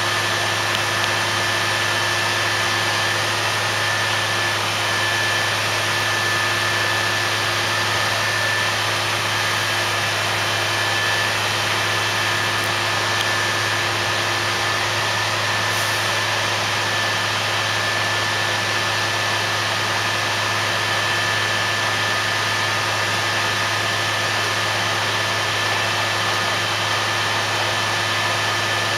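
Well-drilling rig running steadily while drilling the bore: a constant machine hum with a steady high tone over it, and no knocks or pauses.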